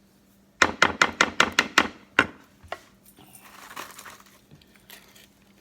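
A kitchen utensil rapping sharply against a dish about eight times in quick succession, then a short rustle.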